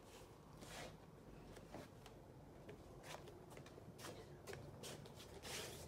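Near silence: quiet room tone with faint, brief rustles and a few soft ticks.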